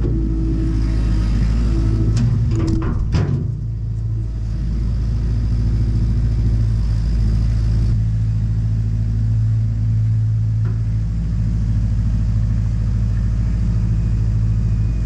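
Tractor engine running steadily under load while bush hogging, a deep continuous drone. Several sharp cracks come between about one and three seconds in.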